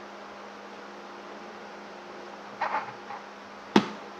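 Small electric motor of a mini sewing machine running with a steady hum as fabric is fed under the needle. A sharp click a little before the end is the loudest sound.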